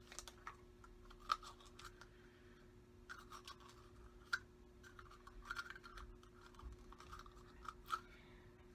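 Faint scratching and crinkling of a small Shopkins toy package being handled and opened by hand, with a few sharper clicks.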